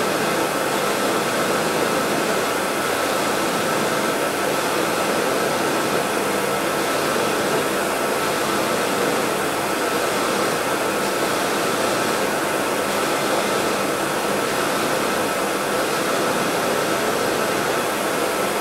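Bench polishing lathe running steadily, its buffing wheel loaded with Dialux Blue compound spinning against a silver ring pressed into it: an even whirring rush with a faint high tone throughout.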